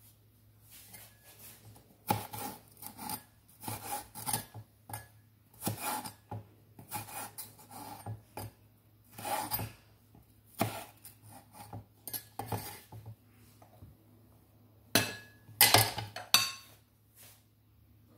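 Knife slicing a green chili pepper on a wooden cutting board: irregular taps and scraping strokes. Near the end come a few louder knocks as the pieces are moved onto a plate.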